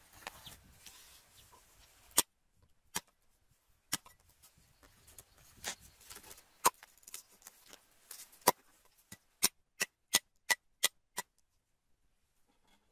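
Cleaver chopping on a thick round wooden chopping block: single chops spaced about a second apart, then a quick even run of six chops at about three a second.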